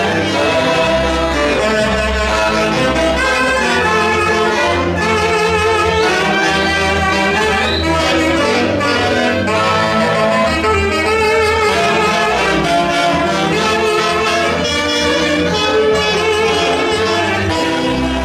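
Music led by brass instruments over a steady, pulsing bass line, played loud and continuous.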